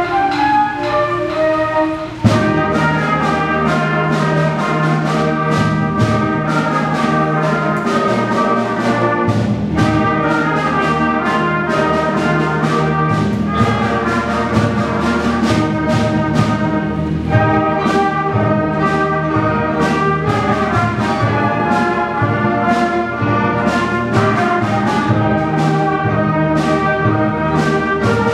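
Middle school concert band playing an Irish clogging tune: a soft woodwind line gives way about two seconds in to the full band, with brass and a steady percussion beat.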